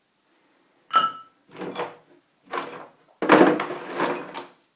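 Steel lathe accessories being handled in a box: a sharp, ringing metal clink about a second in, two shorter knocks, then a longer, louder metal clatter near the end.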